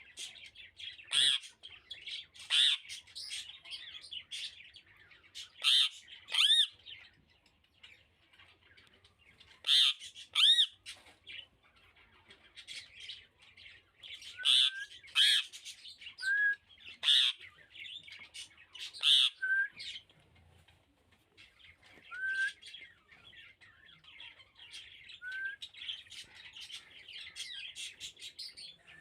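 Rose-ringed parakeet calling: short, shrill calls in loose clusters every second or so, with a few brief rising chirps in between and quieter stretches around 8 and 12 seconds in.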